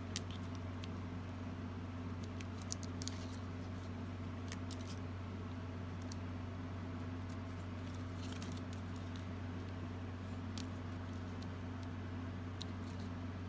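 Faint handling sounds of paper flowers being pressed onto a cardstock card with glue dots: scattered soft clicks and rustles over a steady low hum.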